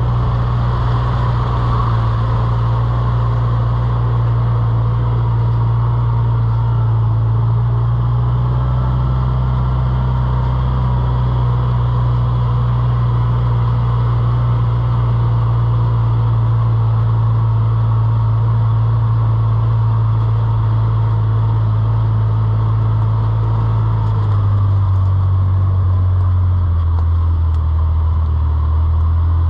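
Motor vehicle running steadily with a loud, low engine drone, whose pitch steps down twice near the end.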